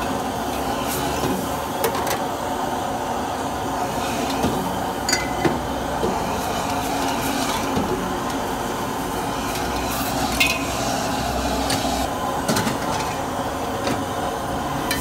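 Metal ladle scraping and clinking in a wok over a gas burner, over a steady roar of flame and cooking. There are a dozen or so sharp clinks, a couple of them ringing briefly.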